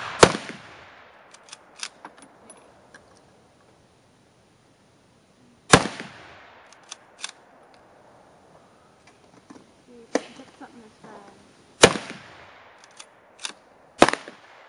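Romanian Mosin-Nagant M44 bolt-action carbine in 7.62x54R firing four loud shots, each with a short echo. The first three come about six seconds apart and the last about two seconds after the third. Between shots the bolt is worked with a quick run of metallic clicks and clacks, ejecting the spent case. A fainter crack comes about ten seconds in.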